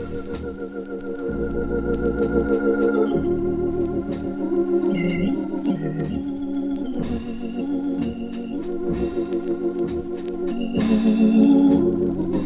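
Jazz Hammond organ playing sustained chords with a wavering vibrato over moving low bass notes, accompanied by light cymbal and drum strokes.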